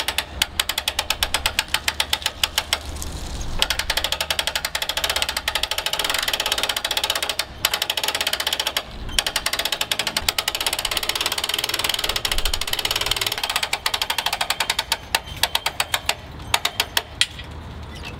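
Hand-cranked boat winch clicking rapidly as it is cranked under load, hauling a long aluminium mast up from horizontal to upright. The clicking comes in runs with a few short pauses and stops about a second before the end.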